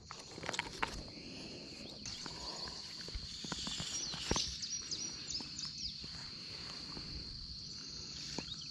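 Riverside ambience: a steady high-pitched insect drone with clusters of short bird chirps, mostly around four to five seconds in and again near the end. Light clicks and knocks from fly-fishing gear being handled are scattered through it.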